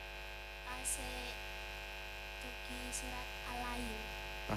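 Steady electrical mains hum and buzz from a public-address sound system, with a faint voice speaking softly underneath about a second in and again past the middle.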